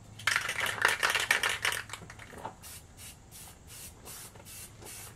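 Aerosol spray paint can shaken hard, its mixing ball rattling, for about two seconds. Then a run of short, even hissing spurts, about three a second.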